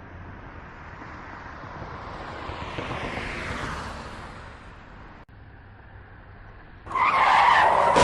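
Road traffic noise that swells and fades as a vehicle goes by, then, about seven seconds in, a loud, sudden car tyre screech of a skid begins.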